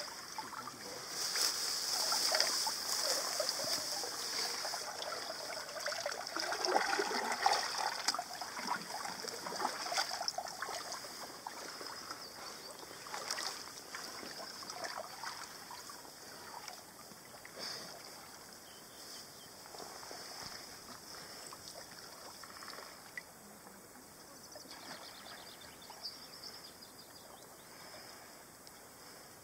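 Kayak being paddled up a small creek: paddle strokes splashing and water trickling and lapping around the hull, with small splashes throughout. The water sound is loudest in the first part and fades gradually quieter through the second half.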